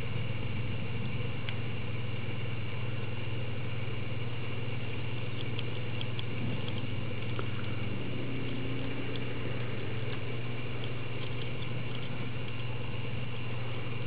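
Steady low mechanical hum with a faint high whine, broken by a few light ticks.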